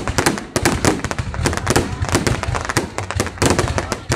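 Fireworks going off in a dense, continuous barrage of sharp bangs, several a second and overlapping.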